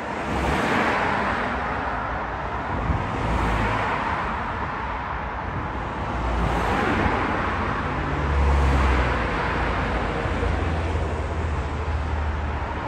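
Road traffic passing close by, cars and a bus swelling and fading about every few seconds, with a low rumble of wind on the microphone.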